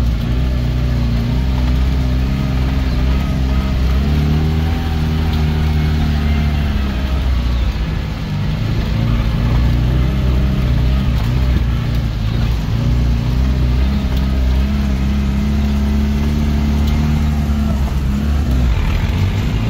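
Off-road vehicle's engine pulling hard in low-range gear through deep, rough ruts. The revs rise about four seconds in, drop around eight seconds, then climb again and hold.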